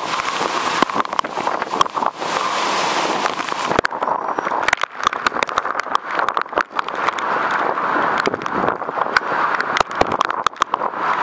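Thunderstorm wind and driving rain, a loud steady rushing hiss with many sharp taps and clicks scattered through it.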